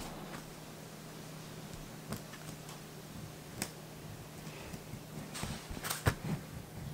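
Sparse light clicks and scrapes of a small knife worked into a tatami mat along its cloth border, with a few sharper clicks near the end, over a steady low hum.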